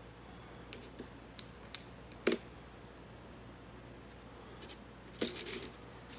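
Metal pipe-fitting parts of a dismantled dielectric union clinking as they are set down on a hard table: three sharp ringing clinks in quick succession about one and a half to two and a half seconds in, then a brief rattle of parts near the end.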